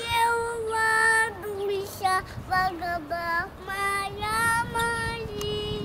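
A little girl singing a slow tune, first in long held notes, then moving through shorter ones.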